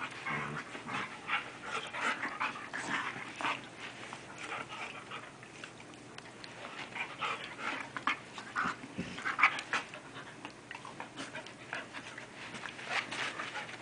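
Two Airedale terriers play-fighting, panting and huffing in many short, irregular breaths as they mouth at each other.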